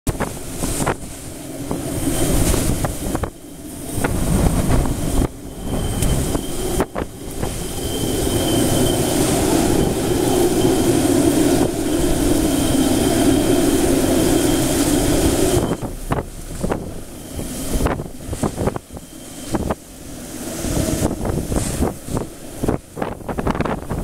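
Typhoon-force wind and driving rain, the wind battering the microphone in gusts. A long, steady blast holds for about seven seconds in the middle, then it breaks into choppy buffeting.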